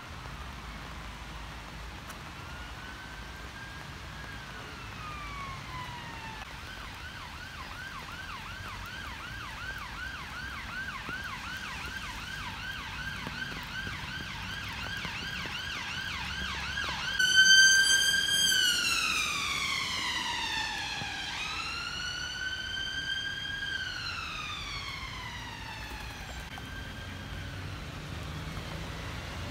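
Emergency vehicle siren passing: a slow wail, then a fast yelp for about ten seconds, growing louder, loudest about two-thirds of the way in, then switching back to slow rising-and-falling wails as it fades away.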